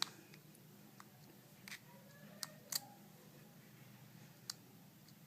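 A few faint, sharp clicks and taps at irregular spacing, with two close together near the middle: small phone parts being handled as a digitizer ribbon cable is pressed into its connector on an HTC phone's circuit board.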